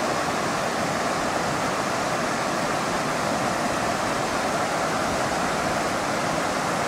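River water rushing steadily over low rock ledges and small cascades.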